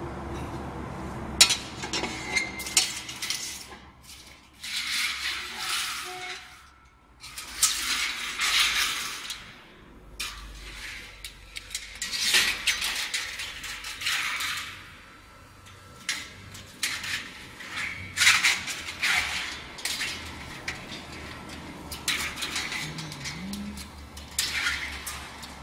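Coils of narrow slit metal strip clinking and scraping against the slitting machine's metal rewind shaft and separator discs as they are handled by hand. The sound is a string of sharp clinks and rasping scrapes, each about a second long, coming every few seconds.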